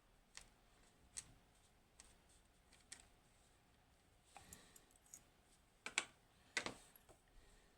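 Faint, scattered clicks and taps of small metal lock parts being handled, a padlock cylinder core and its pins, with the loudest couple of clicks about six seconds in.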